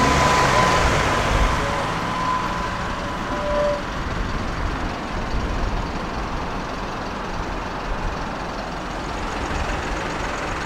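Steady engine and road noise of a moving bus, heard from inside, easing a little over the first few seconds.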